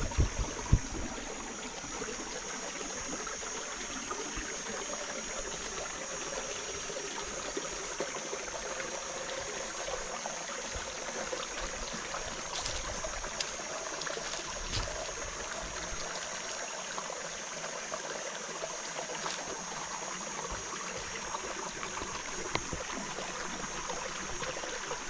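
Forest stream trickling and flowing steadily, under a constant high-pitched buzz. A few sharp knocks come in the first second.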